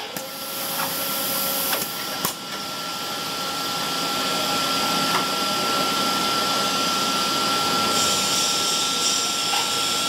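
PPR pipe extrusion line machinery running: a steady whirring hiss with a constant high whine. It grows gradually louder over the first few seconds, with a few sharp clicks in the first two and a half seconds.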